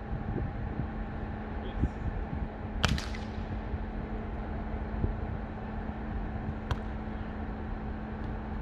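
Volleyball struck by a hand: one sharp slap about three seconds in and a fainter one near seven seconds, over a steady low hum.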